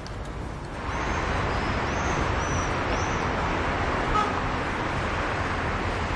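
Street traffic noise: a steady wash of city traffic that swells about a second in, with a few faint high chirps in the following couple of seconds.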